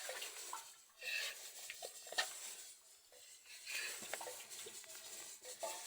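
A utensil scraping and clinking in a metal pot, in short bursts about a second apart, with small knocks.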